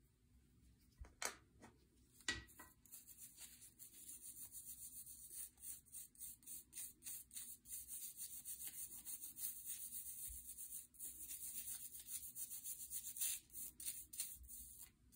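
Toothbrush bristles scrubbing cleaning paste over a metal dragonfly ornament: a faint, dry, high scratching in quick back-and-forth strokes, about three a second. Two light clicks come about one and two seconds in, before the scrubbing starts.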